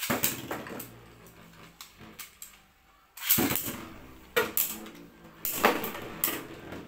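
Beyblade Burst spinning tops launched with a string launcher into a plastic stadium. A sudden rip and clatter as one lands, then the two tops rattle and scrape around the plastic bowl, with several sharp clashes as they strike each other.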